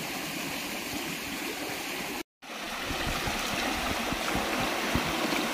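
A shallow rocky stream flowing: a steady rushing of water. It cuts off briefly about two seconds in and comes back a little louder, with a few low thumps.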